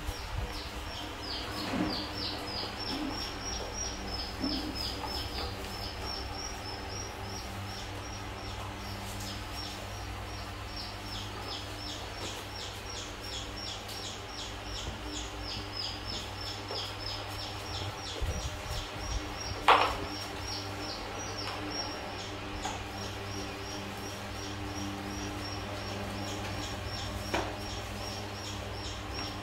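A long, even run of short high chirps, several a second, each falling slightly in pitch, from a chirping animal, over a steady low hum. A single sharp knock sounds about two-thirds of the way in.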